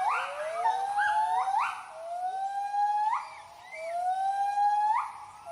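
Gibbons giving their territorial hooting call: a series of rising whoops, about one a second, each gliding upward and ending in a sharp upward leap. A second voice overlaps the first ones.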